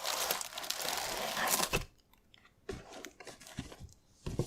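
Crinkling and rustling of a frozen TV-dinner's plastic-filmed tray and cardboard box being handled for about two seconds, followed by a few soft knocks.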